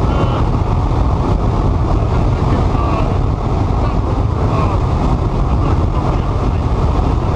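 Steady, loud rumble and hiss with faint, indistinct voices beneath it.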